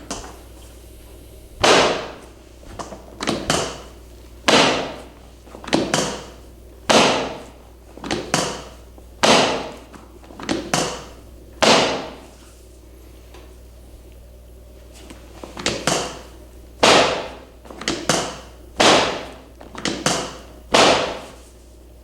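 A long series of sharp knocks or slaps, each dying away quickly. They come singly or in quick pairs, about one a second, with a pause of about three seconds midway.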